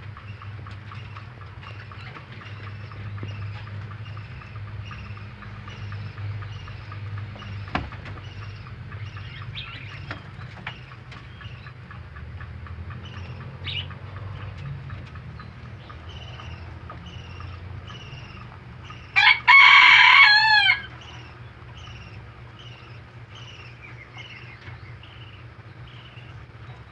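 A rooster crows once, loud and wavering, for about a second and a half past the middle. Throughout, a small bird chirps steadily with short, high falling notes about twice a second, over a low steady hum.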